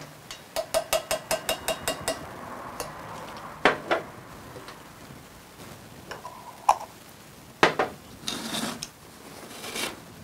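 A spoon tapping on the rim of a stainless steel cup in a quick even run of about ten taps, knocking Dijon mustard off into the cup. A few separate knocks and clicks follow as the mustard jar is handled and closed, and near the end a paper towel rustles as the spoon is wiped.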